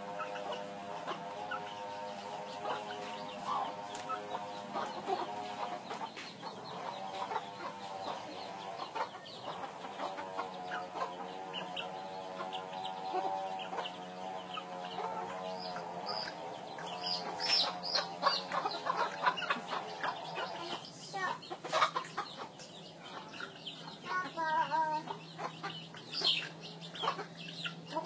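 Hens clucking and murmuring continuously as they forage, with scattered light clicks.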